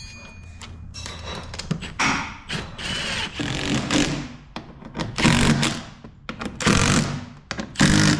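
Cordless drill-driver running in short bursts, driving screws into a race car's body panel: about six bursts, each under a second, with clicks and knocks from handling the panel between them.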